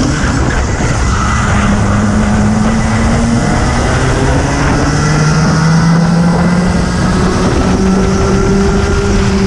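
Racing kart engines running hard at speed: the onboard kart's engine and those of the karts close ahead blend into a steady engine note that steps up in pitch a couple of times as they accelerate.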